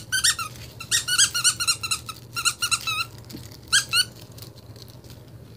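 Squeaky dog toy squeaking in quick runs of short, high squeaks as a puppy bites and tugs at it, falling quiet about four seconds in.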